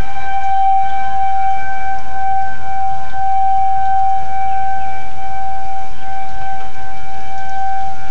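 Outdoor tornado warning siren sounding for a tornado warning, holding one steady, loud tone that neither rises nor falls.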